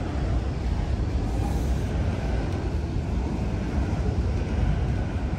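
Freight train cars rolling past, a steady low rumble.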